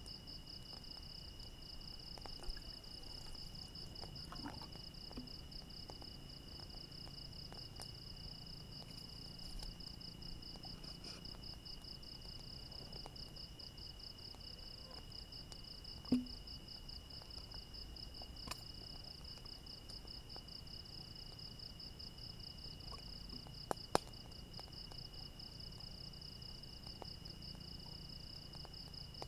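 Night insects trilling without a break: one gives a fast, even, high-pitched pulsing trill and another holds a steady, slightly lower-pitched tone. A few soft clicks or knocks come through, the most noticeable about halfway in and again near the end.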